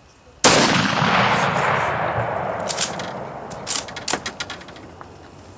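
A single rifle shot from a Mosin Nagant bolt-action rifle about half a second in, its report fading away over several seconds. A few sharp metallic clicks follow a couple of seconds later as the bolt is worked.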